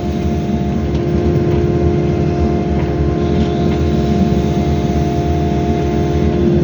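Excavator engine running steadily under work, with a constant whine from its hydraulic pump as the bucket scrapes soil along the cut line.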